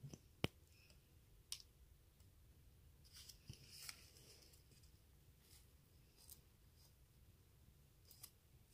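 Quiet crafting handling noise: a few small sharp clicks, the sharpest about half a second in, and a brief soft rustle around three to four seconds in, as a small hot glue gun is worked and a leaf is pressed onto wine corks.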